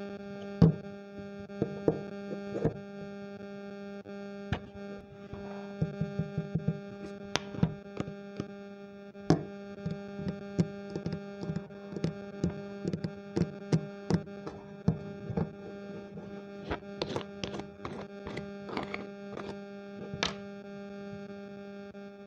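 Fingers pressing and poking clear crystal slime in a plastic tub right at a microphone, giving irregular sharp pops and clicks, with a quick run of them about six seconds in and dense clusters later. A steady electrical hum from the microphone lies under them.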